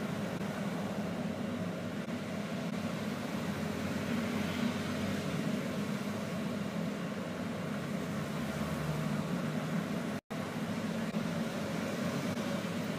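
Steady hum and noise inside a BKM 321 trolleybus cabin. The sound cuts out completely for a split second about ten seconds in.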